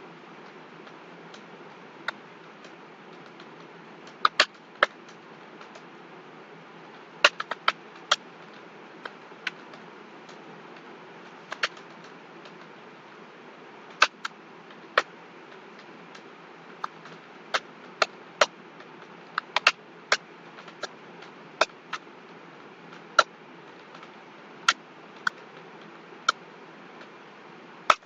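Computer keyboard keys pressed one at a time: sharp single clicks at irregular intervals, about one a second and now and then two in quick succession, over a steady hiss.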